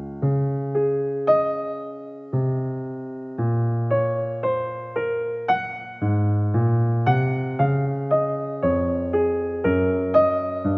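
Slow, gentle piano music: single notes and low bass notes struck one after another, each ringing and fading, the notes coming closer together from about halfway through.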